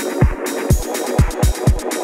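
Electronic dance background music with a steady kick drum about twice a second and fast hi-hat ticks.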